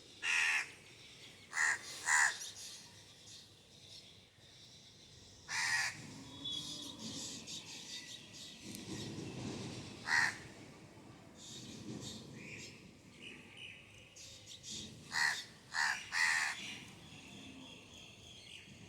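Crow cawing: about eight short, harsh caws, some single and some in quick runs of two or three, with fainter high bird chirps between.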